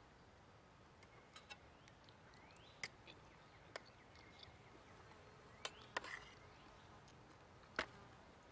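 Metal fork clinking lightly against a small aluminium bowl of picked lobster meat: about seven scattered sharp clicks over quiet background.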